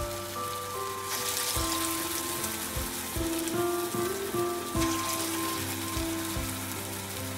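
Thavala vadai, a rice-and-lentil batter fritter, deep-frying in hot oil in a steel kadai: a steady sizzle like rain. A soft background melody plays along.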